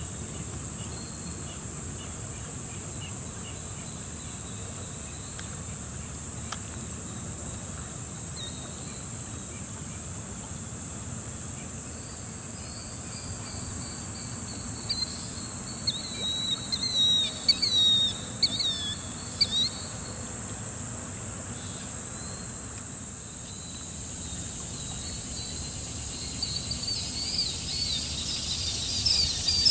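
Insects trilling in a steady, high, unbroken drone. Over it, a flurry of quick, high bird calls comes about halfway through and again near the end, likely killdeer calling from the flock.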